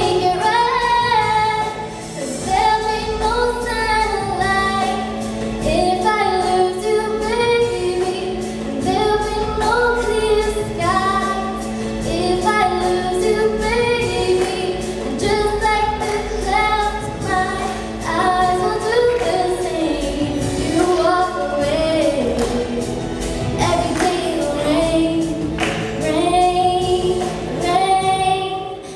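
A young female vocalist sings a slow pop ballad live over musical accompaniment, in long melodic phrases.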